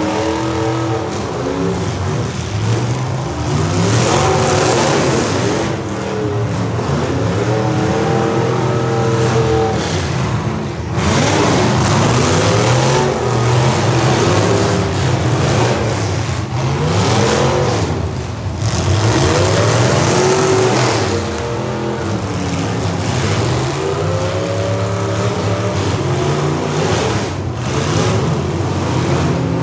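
Several modified full-size demolition derby cars' engines revving hard and falling off again and again, overlapping one another over a steady rumble.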